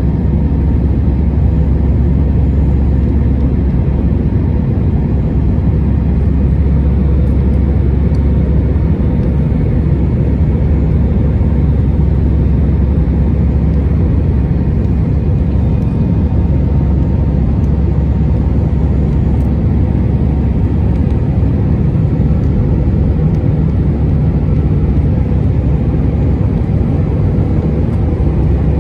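Steady low rumble of an Airbus A319's engines and rushing airflow heard inside the passenger cabin during the climb after takeoff.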